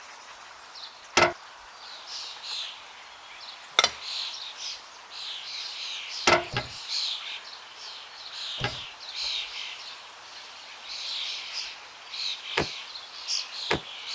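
Sharp, short knocks at irregular intervals, about seven in all, one pair close together in the middle, over birds chirping throughout.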